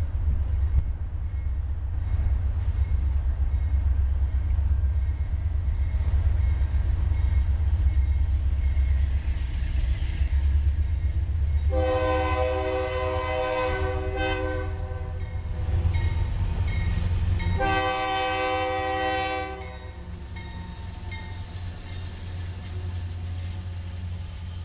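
Diesel-electric freight locomotives led by an ex-Southern Pacific GE AC44CW rumbling past, and about halfway through the lead engine's air horn sounds two long blasts, the first about four seconds and the second about two. After the second blast the heavy engine rumble drops away to the quieter rolling of the freight cars.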